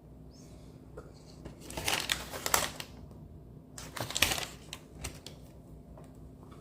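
Close crackling and rustling in two bursts, about two seconds in and again around four seconds, as a mini glazed donut is handled and bitten into.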